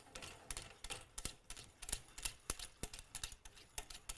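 Snowmobile skid suspension spring being backed off with a long-handled tool: a run of sharp metal clicks, a few a second, unevenly spaced.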